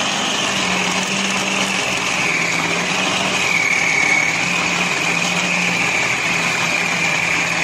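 Westpoint food processor motor running steadily as it kneads a ball of dough, a high whine that dips slightly in pitch about halfway through.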